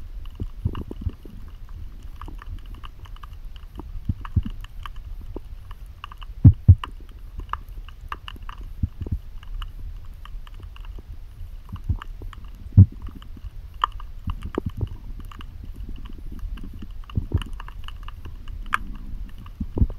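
Underwater sound picked up by a diver's camera: a steady low rumble with irregular sharp clicks and knocks. Two loud clicks come about six and a half seconds in, and another near thirteen seconds.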